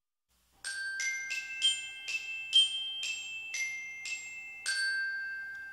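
A short intro jingle of about ten struck chime notes, roughly two a second, each ringing on, with the last note held and fading away.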